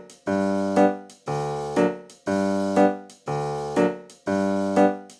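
Background music: a piano-like keyboard playing a short chord figure that repeats about once a second, each chord fading before the next.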